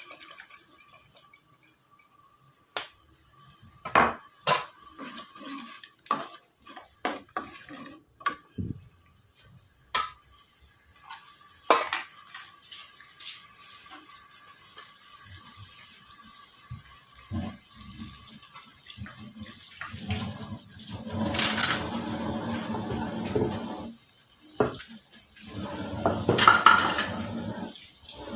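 Kitchen utensil sounds: a spatula and utensils clinking and knocking on a metal wok and dishes, as a string of sharp separate clicks over the first dozen seconds. In the last third comes a louder, steadier stretch of water noise.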